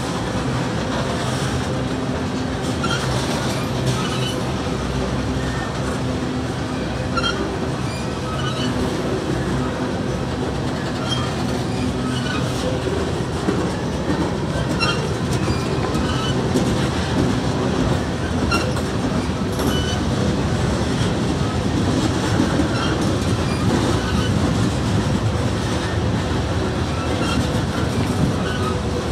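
Freight train's tank and hopper cars rolling slowly through a road crossing: a steady rumble with irregular clicks of the wheels over the rail joints.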